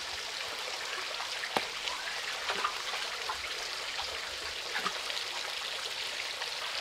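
Steady patter of falling or running water, with scattered light clicks and a few sharper knocks.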